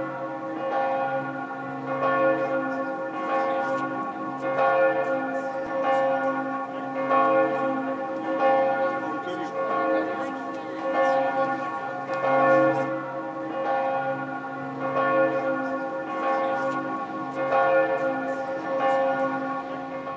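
Church bells pealing, strikes overlapping so the ringing never dies away.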